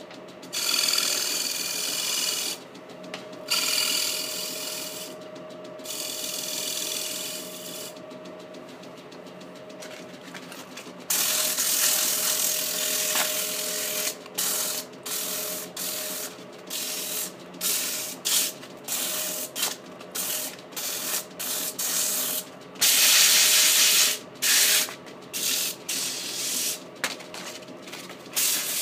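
Wood lathe running with a steady hum while a turning tool cuts the spinning small wooden base in three passes over the first several seconds. From about eleven seconds, sandpaper held against the spinning piece hisses, first continuously and then in many short strokes.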